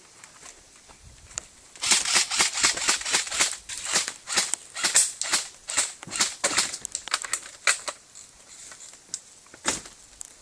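Airsoft guns firing: a dense run of rapid sharp clicks starting about two seconds in and thinning out after about five seconds, with a single shot near the end.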